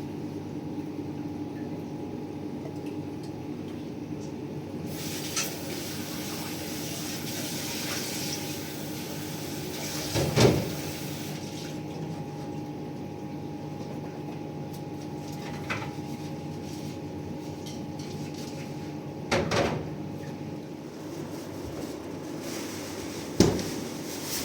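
Water pouring for several seconds and dishes or pots knocking now and then, over a steady low hum.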